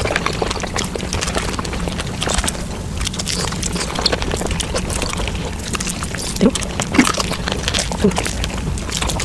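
Eating sounds played back at five times normal speed as someone eats whole chicken: a fast, dense stream of chewing, biting and wet mouth clicks, with a few short high squeaks in the second half.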